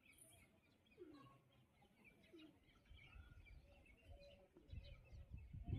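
Faint background birdsong: scattered short chirps from small birds, with two brief low falling calls about a second apart early on, and a low rumble of wind or handling near the end.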